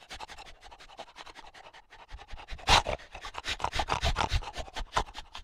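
An animal snuffling and snorting through its nose in a rapid run of short puffs, many a second, growing louder, with a strong snort about 2.7 s in.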